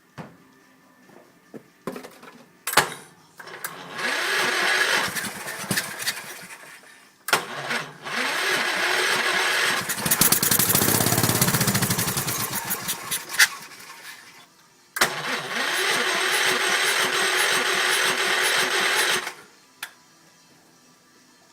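Electric starter cranking a Kohler K341 16 hp single-cylinder engine in three tries, each stopping suddenly. The middle, longest try grows louder and deeper about halfway through. These are the first start attempts after the carburettor was cleaned and fresh oil and gas were added.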